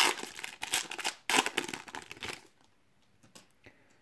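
Foil wrapper of a Donruss trading-card pack crinkling and crackling as it is handled and opened, for about two and a half seconds. After that there are only a couple of faint ticks.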